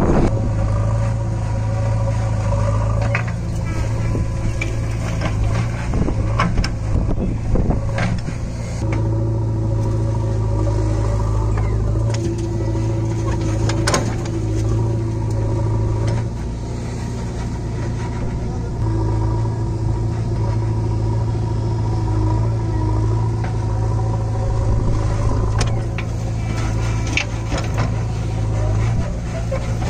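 JCB 3DX backhoe loader's diesel engine running steadily under hydraulic load as the backhoe digs and dumps soil, its note shifting slightly now and then. Occasional short knocks of the bucket and falling clods of earth, the clearest about 14 seconds in.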